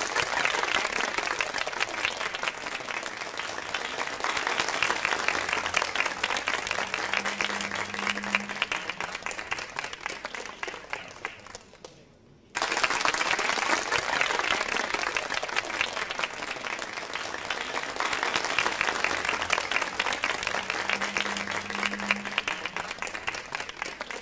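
Studio audience applause as a stock game-show sound effect: dense clapping that starts abruptly, swells, and fades out over about 12 seconds. The same applause clip then plays again.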